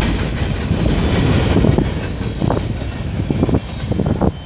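Freight train cars rolling past at close range: a steady low rumble of steel wheels on the rails, with a few sharp knocks in the second half.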